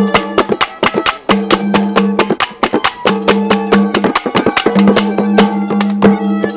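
Instrumental break in Haryanvi ragni folk music: fast, evenly spaced percussion strokes over sustained held notes that break off and come back every second or so.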